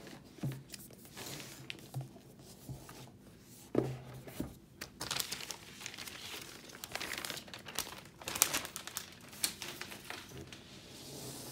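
Thin clear plastic wrap being gathered up and crumpled in the hands, with irregular crinkling and crackling and a few sharper crackles.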